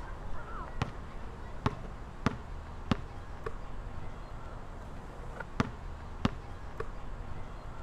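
Basketball bouncing on a hard outdoor court: about half a dozen separate sharp bounces, irregularly spaced, with a pause of a couple of seconds in the middle.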